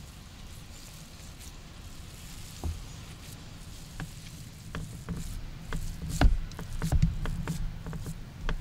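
Hands kneading and squeezing raw meatloaf mixture in a plastic bowl: wet squishing and slapping, sparse at first and busier from about halfway, with a few soft thumps.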